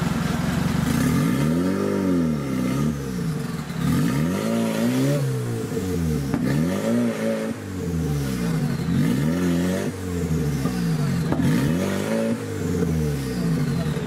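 Off-road 4x4 engine revving up and falling back, over and over, roughly every second or two.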